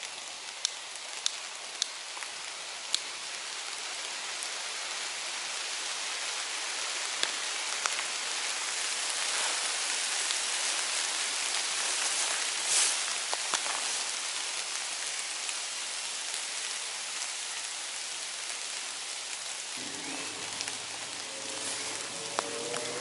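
Heavy rain falling through woodland, with sharp taps of individual drops hitting close by in the first few seconds. The downpour swells to its heaviest around the middle, then eases a little.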